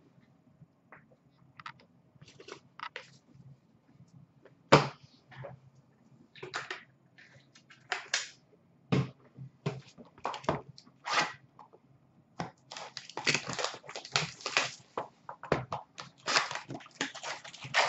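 Hands handling hockey trading cards and their packaging at a counter: scattered taps and clicks with two sharper knocks, then, in the last few seconds, a dense run of rustling and crinkling as a box of card packs is opened and the packs are handled.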